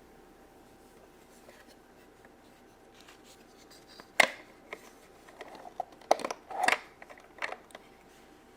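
Small plastic clicks and knocks from a toy fridge's ice-maker dispenser as a mini figure is dropped through it into the little cup: one sharp click about four seconds in, then a short run of clicks toward the end.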